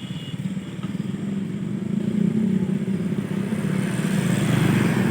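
A small engine running with a fast, even pulse, growing steadily louder, with a rising hiss near the end.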